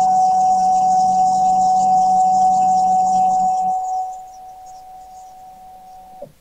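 Stepper-driven axis of a DIY CNC mill-turn machine moving, with a steady high-pitched motor whine and hiss. The sound drops sharply in level about four seconds in, and the remaining tone cuts off just after six seconds as the move ends.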